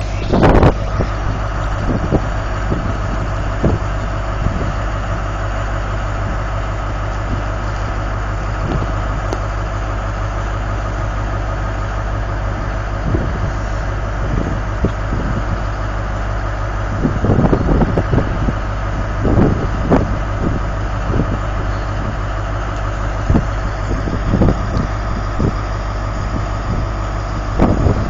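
Class 43 HST power car's diesel engine idling at a standstill, a loud, steady deep hum with a constant higher whine over it. A few short thumps break in about two-thirds of the way through and again near the end.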